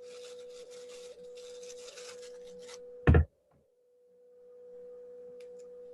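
A steady mid-pitched electrical-sounding tone with a faint hiss, broken by a single loud knock about three seconds in, after which the sound briefly drops out and fades back.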